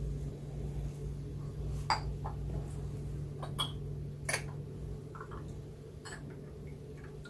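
Glass teaware being handled on a tea tray: about four light clinks and knocks as a glass lid and pitcher are lifted and set down, the one a little past the middle the sharpest, over a steady low hum.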